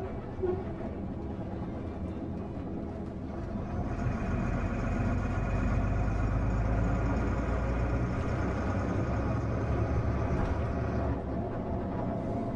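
Coach engine and road noise heard from inside the passenger cabin: a steady drone that grows louder about four seconds in and eases off near the end.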